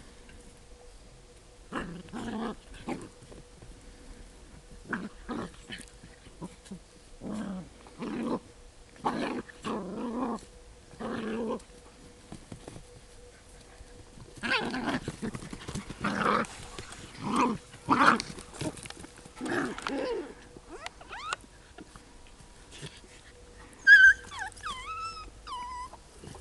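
Dogs growling in rough play: a string of short growls, one every second or two. Near the end comes one high yelping whine that falls in pitch.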